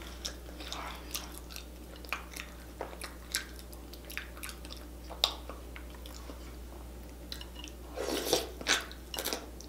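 Close-miked eating by hand: chewing, with wet smacking and clicking mouth sounds from sauce-soaked seafood-boil food. Near the end comes a louder, longer slurp as she sucks the sauce off the food.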